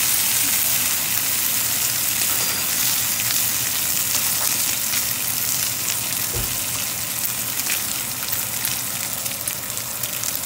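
Bacon sizzling and crackling in hot grease in a cast-iron skillet, easing slightly over time, with a brief low knock about six seconds in.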